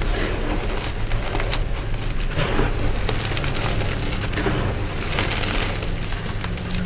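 Crumbled Nexo chalk crunching and grinding as gloved hands squeeze and rub it, sifting the powder through the fingers in a run of irregular crunches.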